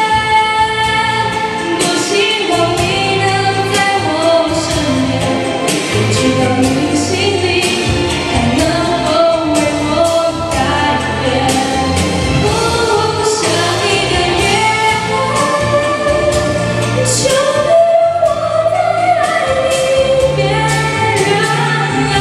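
A woman singing a Mandarin pop ballad into a handheld microphone, her voice amplified over an instrumental accompaniment with bass and a steady drum beat.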